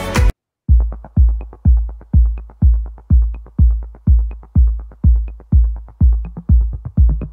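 Electronic background music: the full track stops abruptly just after the start, and after a short gap a bare kick-drum beat runs at about two beats a second with a faint tick about once a second.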